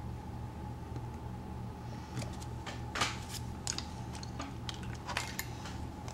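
Hands handling small tools at a fly-tying vise: a scatter of light clicks and metallic taps starting about two seconds in, the sharpest near the middle, over a steady low hum.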